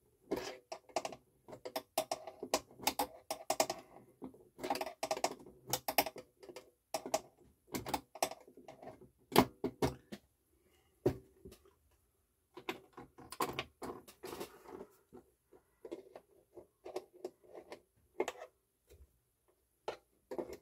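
Irregular small clicks and taps of a hand tool and a small nut against the metal armrest bracket and plastic chassis of a turntable, as the nut is worked onto its threaded post. The clicks come in clusters with a couple of short pauses.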